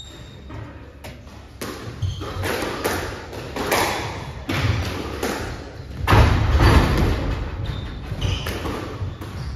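Squash rally: a rubber squash ball struck by rackets and hitting the court walls, giving a run of sharp thuds that starts after a quiet first second.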